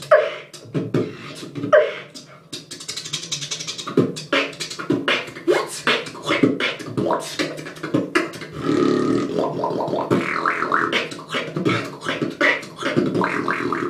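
Beatboxing: one long continuous mouth-made noise of rapid clicks and sharp strokes. It runs through a hissy stretch a few seconds in and a steadier buzzing stretch about nine seconds in.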